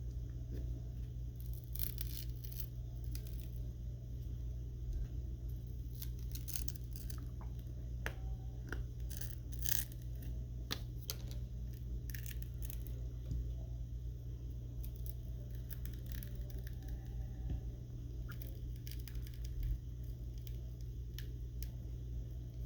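Scattered small clicks, taps and scrapes of hand tools and parts being handled on a smartphone during a screen repair, over a steady low hum.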